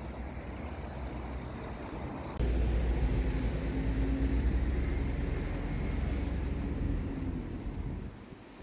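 Low rumble of a motor vehicle going by, jumping louder about two seconds in and fading near the end, with wind buffeting the microphone.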